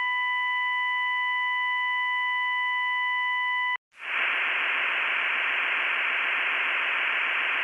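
Emergency alert broadcast signal: a steady, high electronic alert tone holds for nearly four seconds and cuts off, then after a brief silence a steady hiss of white-noise static fills the rest.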